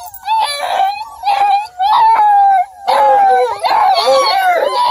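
Bluetick-beagle cross hound puppies yelping and howling, a run of high wavering calls, some short and some drawn out, coming thicker from about three seconds in.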